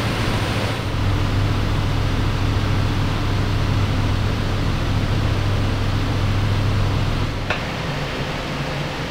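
Steady low machine hum with a hiss over it. There is a short click about seven and a half seconds in, after which the hum drops a little quieter.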